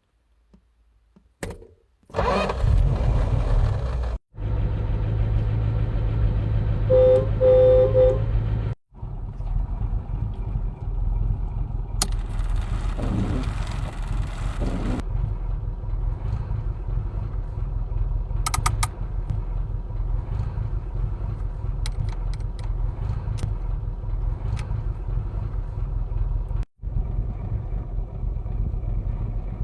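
Vintage car's engine running with a steady low rumble, breaking off abruptly a few times. A horn beeps several short times about seven seconds in.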